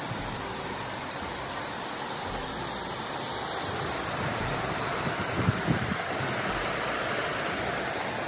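Steady rushing of running water. A few short crunches of footsteps on shoreline stones come about five to six seconds in.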